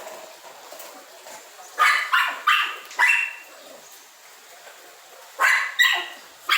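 A dog barking: a quick run of four barks about two seconds in, then three more near the end.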